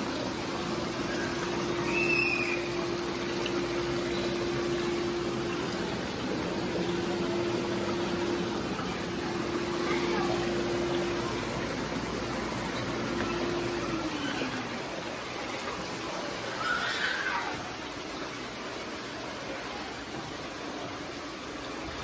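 Water running and splashing through the channels of a children's water play table, with a steady motor hum from the table that slides down in pitch and stops about fourteen seconds in.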